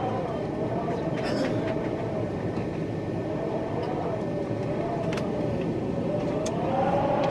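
Outdoor tornado warning siren wailing from a distance, its pitch wavering up and down as it sweeps round, then rising near the end, over the steady rush of strong storm wind.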